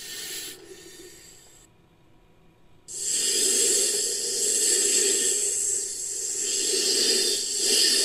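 Snake-like creature sound effect: a long, breathy hiss with no clear pitch that starts suddenly about three seconds in and carries on with slow swells in strength. Before it, the fading tail of an earlier call dies away into near quiet.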